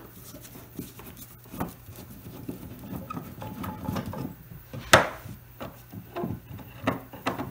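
Hand screwdriver backing old wood screws out of worn wooden table slides: scattered small clicks, creaks and rubs of the turning screws, with one sharp click about five seconds in.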